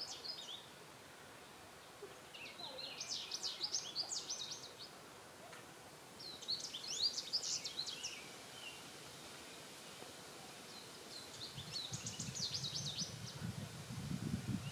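A small songbird singing, each song a quick run of high notes lasting about two seconds, three songs several seconds apart. A low rumble comes up near the end.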